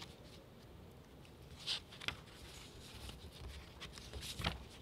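A pause in a speech picked up by podium microphones: faint room hum with a few brief soft noises, about two seconds in and again near the end.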